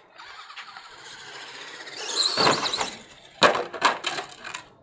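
Radio-controlled truck running with a rushing noise, then a loud wavering high-pitched squeal for about a second. It is followed by a sharp crack and several smaller clattering knocks as the truck hits the ground.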